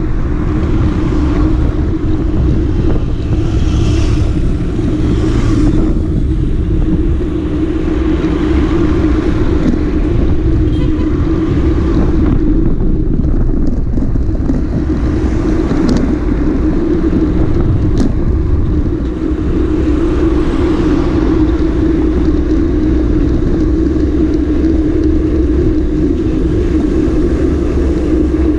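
Sport motorcycle engine running at a steady cruising speed while riding, a constant hum over a heavy low rumble of wind and road.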